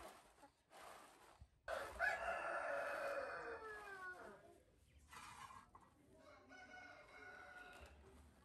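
A rooster crows once, loudly, starting about two seconds in, the call sliding down in pitch as it ends. A fainter, drawn-out call follows near the end.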